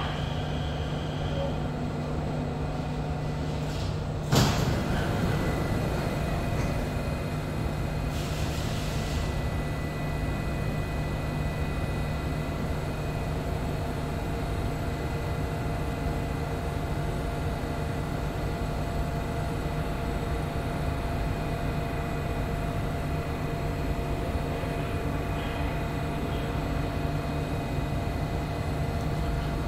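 Inside an SMRT CT251 metro train: a steady hum of ventilation and running gear, with a single sharp thud about four seconds in as the sliding doors shut. A brief hiss follows a few seconds later.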